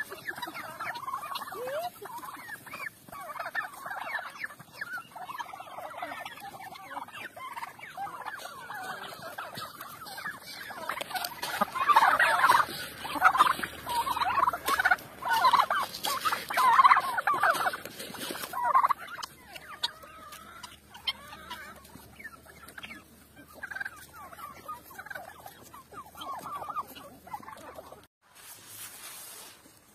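Domestic turkeys gobbling over and over, the calls loudest and densest in a run about halfway through, then cut off abruptly shortly before the end.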